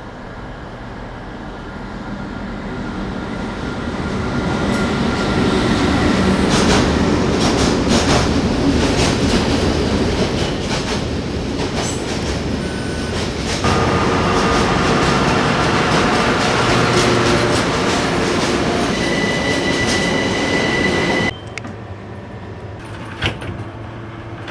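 Underground train running, with rattling wheels and high steady squeals. It builds over the first few seconds, then cuts off abruptly near the end, leaving a lower hum and one sharp click.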